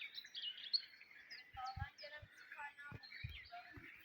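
Small songbirds chirping and twittering in many quick, high, short notes, with a few soft low thumps around the middle.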